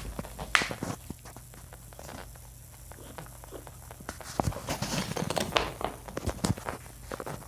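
A pet rabbit wheezing: irregular, raspy, noisy breaths, with a sharp burst about half a second in and a denser run of breaths from about four to seven seconds in. The wheeze is a sign of respiratory trouble.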